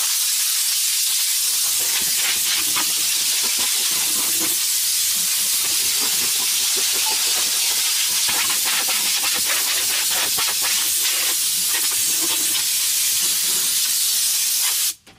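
Compressed-air blow gun hissing steadily as it blows dust out of a truck cab's dashboard, then cutting off suddenly near the end.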